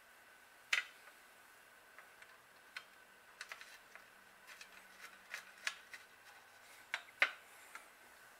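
Scattered light clicks and taps from hands handling and fitting the metal chain guard on a bicycle frame, irregular, the sharpest near the start and near the end. A faint steady high hum runs underneath.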